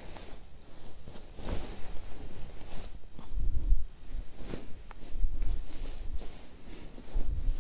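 A saree's fabric rustling as it is handled and spread out by hand, with irregular brushing sounds and a few low, dull handling thumps.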